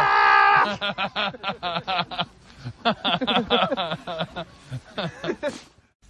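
A person lets out a loud yell on landing in deep snow, then laughs in quick breathy bursts for several seconds.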